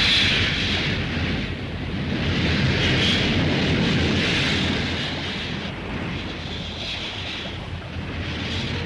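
Film sound effect of an explosion's aftermath: a steady rushing, hissing noise over a low rumble, swelling every few seconds and slowly dying down.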